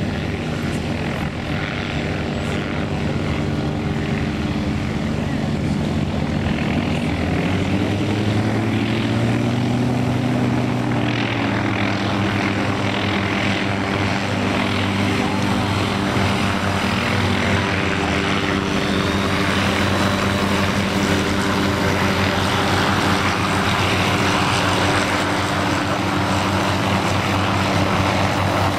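Light helicopters running up and lifting off close by: a steady engine and rotor drone made of several tones, which glides up in pitch between about seven and eleven seconds in. A harsher rushing noise builds over it from about eleven seconds in.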